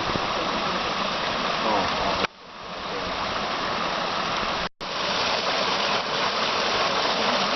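Steady rushing of a mountain creek. It drops away suddenly about two seconds in, swells back up, and cuts out for an instant near the middle.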